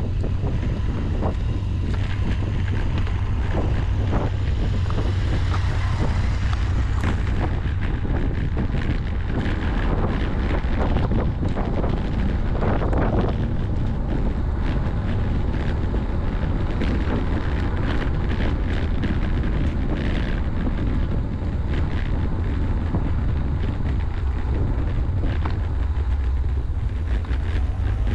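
Wind buffeting an action camera's microphone on a moving road bicycle: a steady, loud, low rumble with scattered short clicks.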